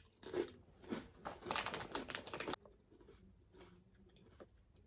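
Crunching of a ridged potato chip being bitten and chewed, a rapid run of crisp crunches that stops about halfway through.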